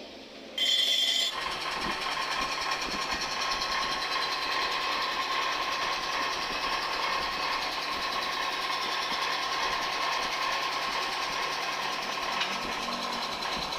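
A small motor starting up about half a second in and then running steadily, with a steady whine and a hissy edge.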